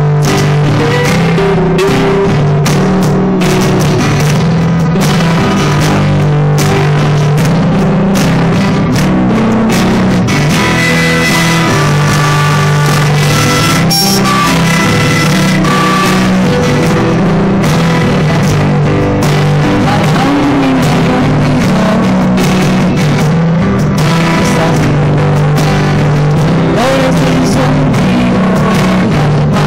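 Live rock band playing loudly: guitars, bass and drums, with a woman singing into a microphone.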